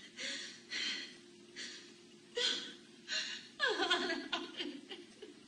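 A woman sobbing: several short breathy gasps, then about halfway through a longer sob that falls in pitch.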